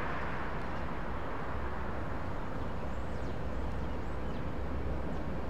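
Steady low outdoor rumble with a few faint, short high chirps about three to four and a half seconds in.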